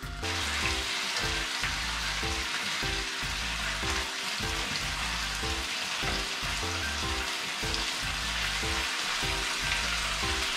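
Sliced pork for ginger pork sizzling steadily in a hot frying pan as it is turned with chopsticks.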